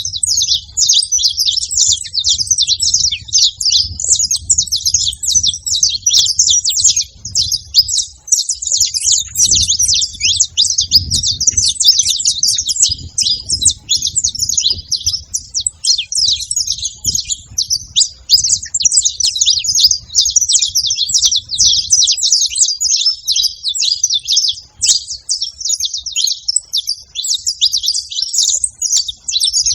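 Several saffron finches (canário-da-terra) singing and chirping together in a dense, unbroken chorus of quick, high notes and trills.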